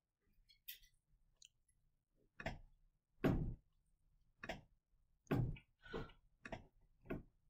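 A series of about eight soft, irregular taps and clicks spread over several seconds, the loudest a little past the middle, with quiet room tone between them.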